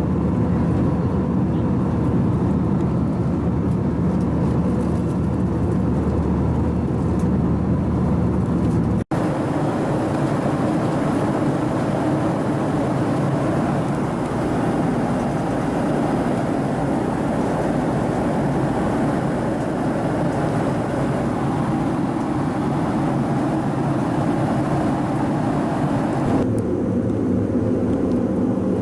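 Steady cabin roar of an Airbus A321 with CFM56 engines in flight, a dense rumble of engine and airflow noise. The sound's colour changes abruptly at about nine seconds, after a brief dropout, and again near the end, where the footage is cut.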